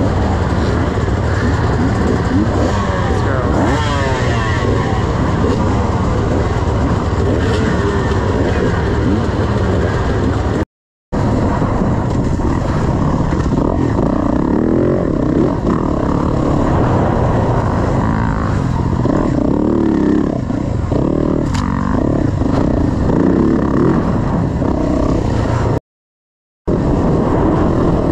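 Yamaha dirt bike engine running and revving up and down as it is ridden, the pitch rising and falling with the throttle. The sound cuts out twice, briefly.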